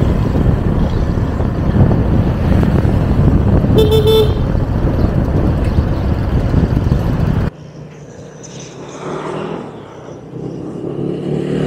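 Wind rushing over the microphone with road noise from a moving motor scooter, and a short horn toot about four seconds in. The noise cuts off suddenly about seven and a half seconds in, leaving a much quieter background.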